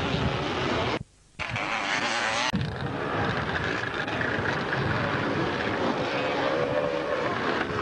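Several motocross dirt bike engines running and revving, their pitch wavering up and down; the sound drops out briefly about a second in.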